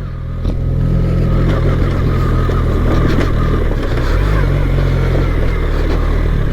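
BMW R 1300 GS's boxer-twin engine running steadily while riding, with steady tyre and road noise from the dirt track.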